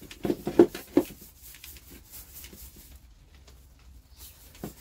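Grit being shaken through a flexible plastic mesh sieve into a plastic bucket: a few sharp rattles and knocks in the first second, then a softer scratchy rustle of grit that dies away, with one more knock near the end.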